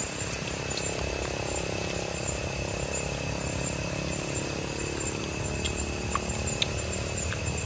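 Steady outdoor background sound: a constant high-pitched drone over a low hum, with a few faint clicks.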